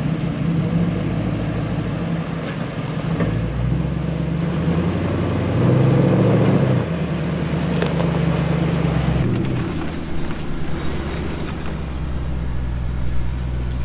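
Vehicle engines running during an off-road recovery pull of a mud-stuck SUV on a rope. The engine note rises about three seconds in and is loudest around six seconds, as the rig works under load. After a cut it settles into a steadier drone.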